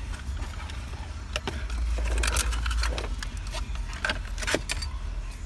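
Plastic wiring connectors and harness wires behind a car's steering column being handled: scattered light clicks and rattles, over a low rumble of handling noise on a handheld camera's microphone.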